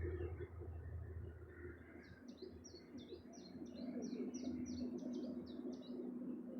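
A small songbird singing a fast run of high chirps, about four a second, starting about two seconds in and stopping near the end. A steady low hum sets in underneath about halfway through.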